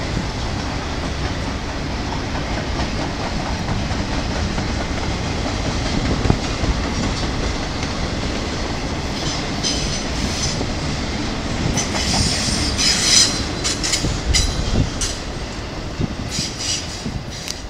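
Double-stack intermodal freight cars rolling past with a steady rumble and wheel clatter. From about halfway on, wheels squeal in short high-pitched bursts, loudest a few seconds later.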